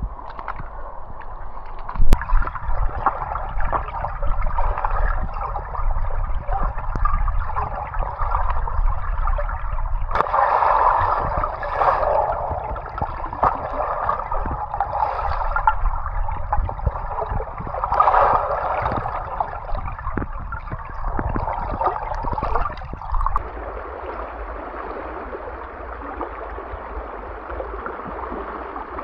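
Water gurgling and sloshing, broken by irregular knocks and thumps, then settling into a steadier trickle for the last few seconds.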